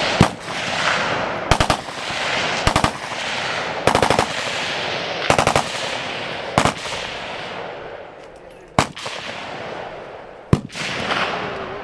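Short bursts of automatic machine-gun fire, a few rapid shots each, coming every second or two and each trailing a long echo. Two single reports follow in the last few seconds.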